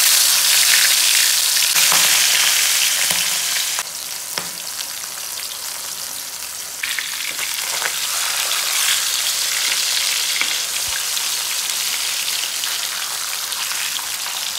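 Food frying in hot oil in a pan, a loud steady sizzle with a few short knocks from stirring. The sizzle drops a little about four seconds in and builds again about seven seconds in.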